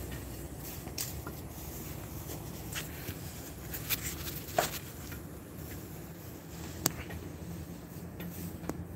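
Outdoor ambience: a steady low rumble with a handful of short light clicks and taps, the sharpest about four and a half and seven seconds in.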